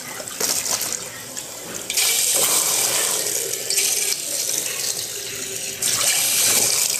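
Kitchen tap running, its stream splashing onto a white plate held under it and into the sink while dishes are washed. The splashing gets louder about two seconds in and again near the end as the plate is moved in the stream.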